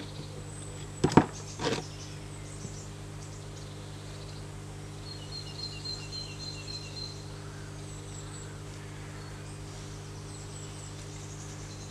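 Two sharp wooden knocks about a second in, from the green-wood stick frame of a home-made bucksaw being handled on the workbench. After them a bird chirps faintly in a quick run of short notes, over a low steady hum.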